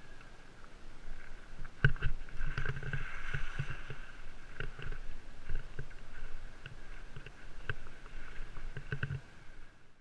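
KTM Fat Rat fat bike with 4-inch tyres riding through a creek crossing and onto sand and dirt. There is a hard knock about two seconds in as the bike drops onto the crossing, then a run of irregular bumps, rattles and rumbling as the tyres roll over stones, ruts and sand, easing off near the end.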